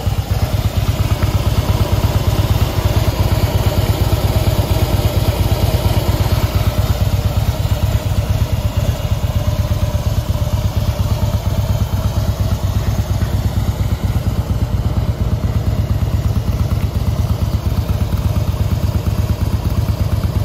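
2016 Harley-Davidson FLSTN Softail Deluxe's 1690 cc V-twin engine idling steadily, with an even, low, pulsing exhaust beat.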